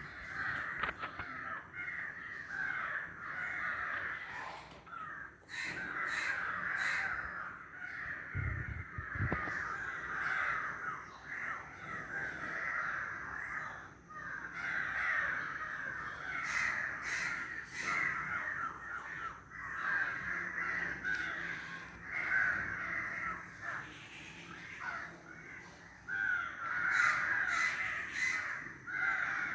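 A dense, unbroken chorus of overlapping animal calls, with a short low thud about eight seconds in.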